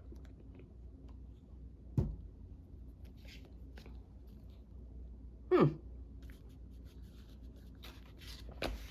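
Craft materials handled on a desk: a sharp knock about two seconds in, a brief sound falling quickly in pitch about halfway through, and another knock near the end, with light paper rustling between.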